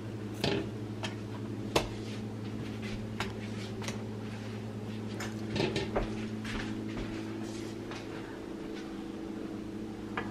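Steady low hum of a kitchen appliance, with a few light clicks and clinks of dishes and utensils scattered through it.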